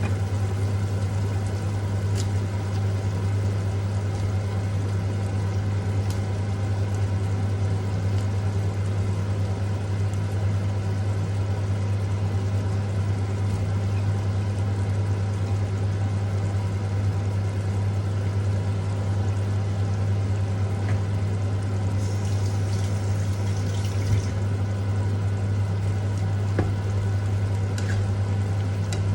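Steady low electrical hum of a running kitchen appliance motor, unchanging throughout, with a few faint clicks and a brief soft hiss about three quarters of the way through.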